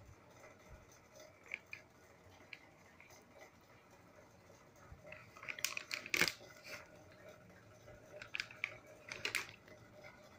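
Handling noise: a plastic anti-static bag crinkling and small clicks as a graphics card is moved about on it, in two short flurries, about halfway through and again near the end.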